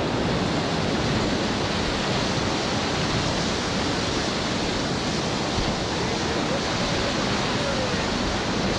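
Whitewater rapids of a steep mountain creek rushing around a raft: a steady, even wash of water noise.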